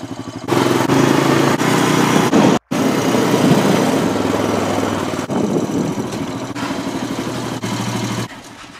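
Four-wheeler (ATV) engine running steadily, heard from the rider's seat. It breaks off for an instant about two and a half seconds in, then fades a little before stopping short near the end.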